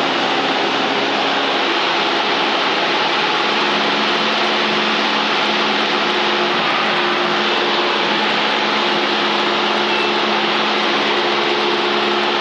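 Cockpit audio of a Van's RV-7 in the climb, heard through the headset intercom: the steady engine drone is buried under a loud static hiss. The static is radio interference that appears when the engine runs at about 1,800–2,000 rpm and above.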